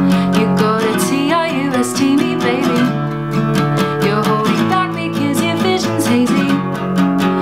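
Woman singing a pop song to her own strummed acoustic guitar, with a steady strumming rhythm under the vocal line.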